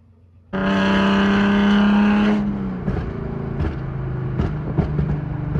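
Genesis Coupe's 3.8 V6 through a Tomei exhaust, starting abruptly and held at high revs for about two seconds, then the revs fall. It settles into a lower steady drone under way, heard inside the cabin, with scattered sharp ticks.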